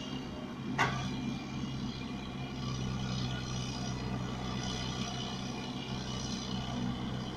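Excavator's diesel engine running steadily, with one sharp metallic knock about a second in.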